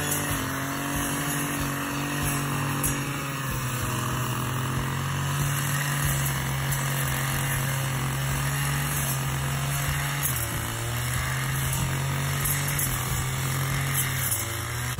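Shoulder-slung brush cutter's small engine running steadily as it cuts grass. The engine note drops a little about ten seconds in and picks up again near the end.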